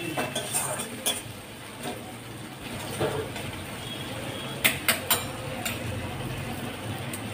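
Metal spatula scraping and knocking against a metal kadai while stirring a thick frying masala, with a quick run of sharp metal-on-metal clicks about five seconds in, over a low steady hum.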